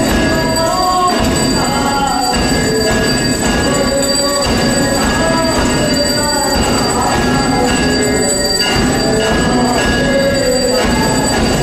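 Temple hand bells ringing without a break during an aarti, a steady metallic ringing, over a voice singing the aarti hymn.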